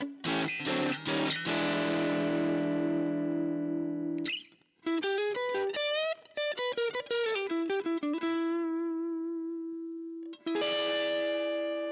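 Electric guitar played through a VOX StompLab IIG multi-effects pedal on one of its overdriven 'Gain' amp models: chords with short choppy stops, then a single-note lead line with bent notes, a long held note, and a final chord struck near the end and left to ring.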